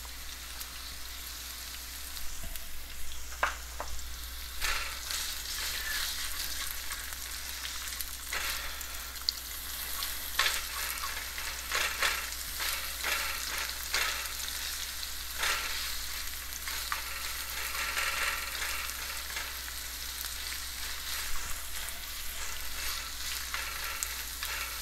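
Sliced onions with curry leaves and mustard seeds sizzling in hot oil in a non-stick wok: a steady hiss, with repeated scrapes and taps of a spatula stirring them.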